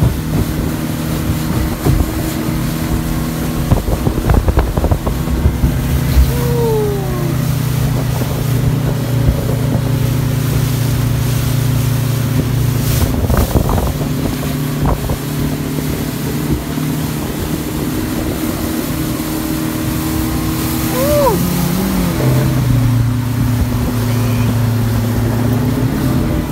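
Speedboat engine running steadily under way. Its note drops a little about six seconds in and shifts again a little past twenty seconds, with a few knocks in between.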